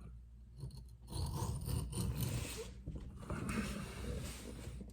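Knife blade being stroked across a dry sharpening bench stone, a few long scraping passes starting about a second in.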